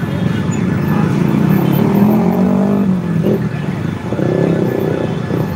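Road traffic at a busy intersection: motorcycle and car engines running and passing close by. One engine rises and then falls in pitch around the middle, as a vehicle accelerates past.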